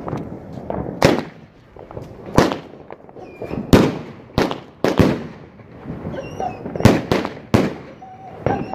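Aerial fireworks going off: about ten sharp bangs at uneven intervals, each trailing off in a short echo, with a few brief whistles between them.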